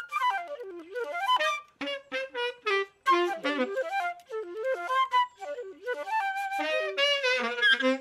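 Flute playing a quick melody of short, separate notes and little runs, with no bass or drums underneath.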